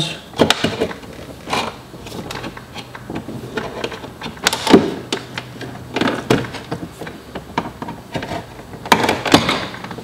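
Small flat-blade screwdriver prying at a plastic door trim piece on a Volvo XC90's inside door handle area, giving scattered clicks and knocks as its retaining tabs are worked loose. The sharpest snap comes a little before halfway.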